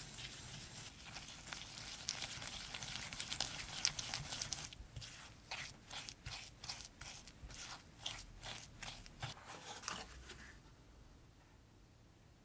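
Wire whisk creaming butter and granulated sugar in a glass bowl. It makes a gritty scraping and crunching as the sugar grains are worked into the butter, then settles into regular strokes about three a second, and stops a couple of seconds before the end.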